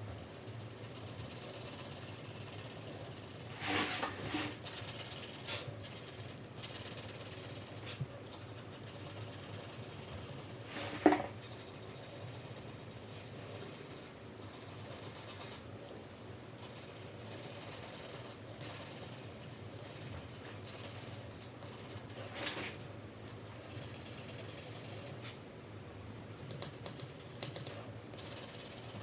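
4B graphite pencil shading on paper: steady scratchy rubbing strokes, with a few short sharp taps, the loudest about eleven seconds in.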